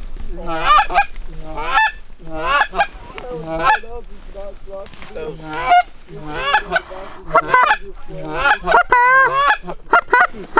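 Loud, close Canada goose honks, each going from a low note up to a high one, about one a second, with a quick run of short clucks near the end.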